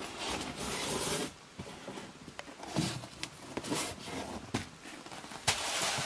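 Rustling and a series of light knocks and clicks as a cardboard box of porridge oats is taken out and handled.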